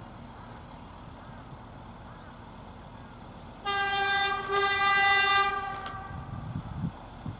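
Diesel railmotor's horn sounding a few seconds in, a short blast and then a longer one on a single steady pitch, about two seconds in all, followed by a couple of low thumps near the end.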